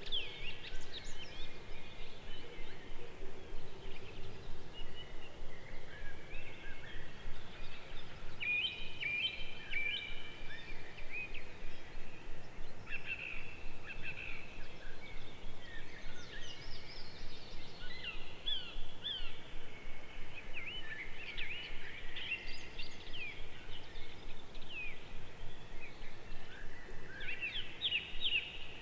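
Several songbirds singing in a busy outdoor chorus of quick chirps, trills and sweeping whistles over a steady background hiss.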